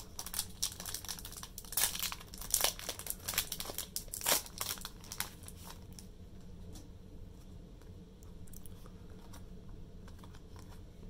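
Foil Pokémon booster pack wrapper crinkling and tearing as it is opened, a dense run of crackles for the first five seconds or so, then only a few faint ticks.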